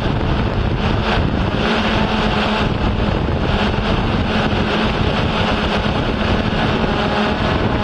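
Yuneec Typhoon H hexacopter in flight: a steady propeller and motor hum with a rush of wind over the on-board microphone.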